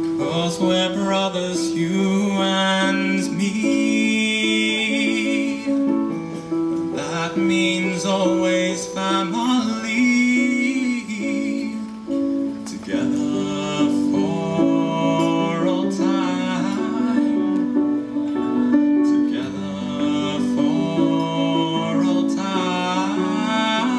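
A teenage boy singing a song into a handheld microphone, over an instrumental accompaniment of held chords and a steady low bass line.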